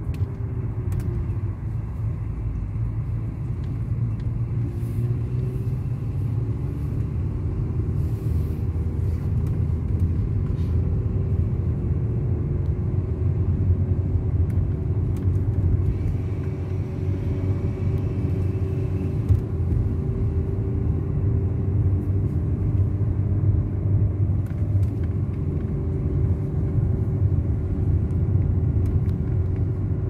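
A car driving along a road: a steady low rumble of engine and tyres, with an engine hum that drifts slightly up and down in pitch.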